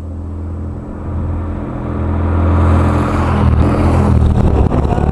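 Two loaded BMW GS adventure motorcycles approaching at a steady engine note, growing louder and passing close by about three to four seconds in.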